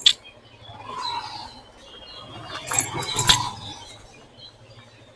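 Road traffic heard from a moving rider: a low steady hum under sharp clicks and clinks, with a louder jumble of clicks and short tones about three seconds in.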